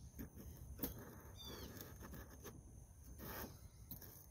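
Quiet outdoor ambience: a couple of faint, short bird chirps about a second and a half in over a steady high insect drone, with a few light knocks and clicks from handling the plastic strawberry-shaped hummingbird feeder.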